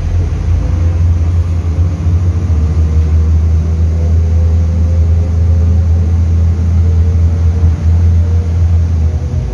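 Inside a moving MAZ 105.065 articulated diesel city bus: a steady, loud low drone of engine, drivetrain and road rumble.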